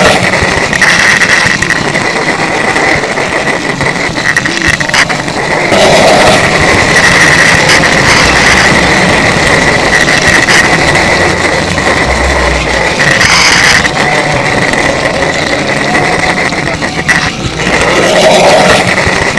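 N gauge model train running on the layout: the small electric motor gives a steady high whine over a continuous rough running noise from the wheels and track.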